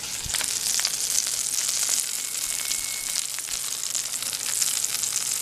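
Food sizzling and crackling steadily in a hot cast iron skillet.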